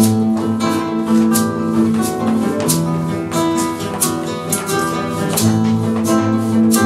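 Two acoustic guitars playing a flamenco piece, with sharp percussive accents landing every fraction of a second.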